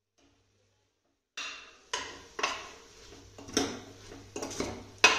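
A metal ladle stirring bathua leaves into tomato masala in a pressure cooker, knocking and scraping against the pot. The clanks start about a second and a half in, come about seven times at an uneven pace, and the loudest is near the end.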